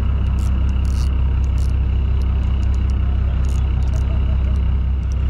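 Fishing boat's engine idling, a steady low hum, with scattered faint high ticks over it.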